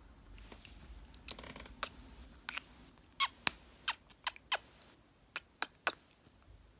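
Close-up mouth sounds: wet lip smacks and kissing pops, about a dozen sharp clicks in an uneven run after a soft breathy start.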